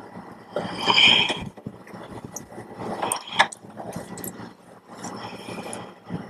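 Plastic reagent bottles being handled and slid into the reagent cabinet shelf of a tissue processor: plastic scraping on plastic, with a scrape about a second in, two sharp knocks a little after three seconds, and another scrape near the end.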